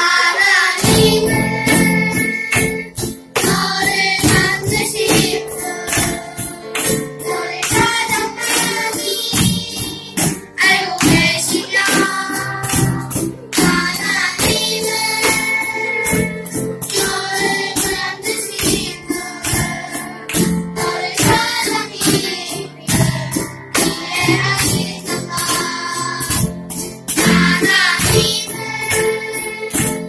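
Children's choir singing a song in unison to live accompaniment, with a steady beat played on cajón box drums and keyboard and small guitars underneath.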